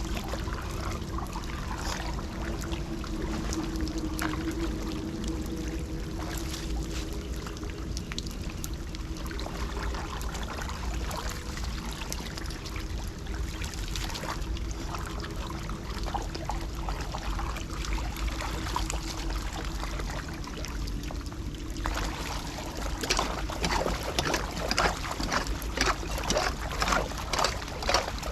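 Floodwater pouring and trickling into a clogged street drain, with a low steady hum underneath. About 22 seconds in, sharp, irregular splashes and knocks start and grow busier.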